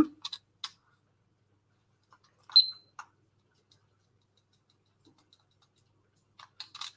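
Handling at the stove: a few faint clicks, then one short, high ding about two and a half seconds in, followed by a lighter click.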